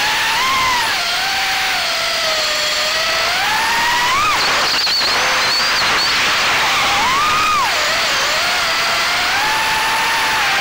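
FPV quadcopter's brushless motors and propellers whining, heard from the camera on the quad itself, the pitch sliding up and down with the throttle through flips and rolls. About four and a half seconds in the whine drops out briefly as the throttle is chopped, then picks up again.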